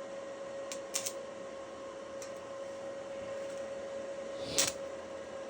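Steady electrical hum of a stick welder idling, with a few short sharp clicks, the loudest about four and a half seconds in.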